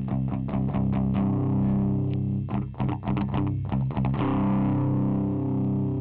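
Electric guitar played through a Boss ME-20 multi-effects pedal with its OD/DS (overdrive/distortion) section switched on: a distorted riff of quick picked strokes over ringing low notes.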